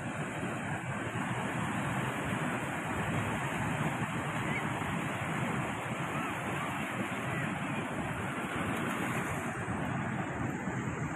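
Atlantic surf breaking offshore and washing in among shoreline rocks: a steady rush of moving sea water.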